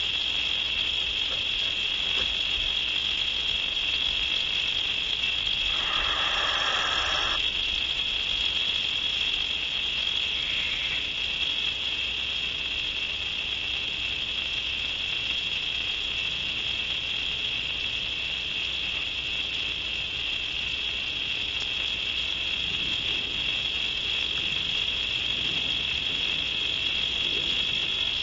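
Steady night chorus of crickets, one continuous high trill. About six seconds in, a brief noisy sound lasting about a second and a half rises over it.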